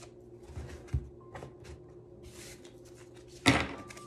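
A tarot deck being handled and shuffled by hand: light card clicks, a soft thump about a second in, and a short, loud clatter of cards about three and a half seconds in.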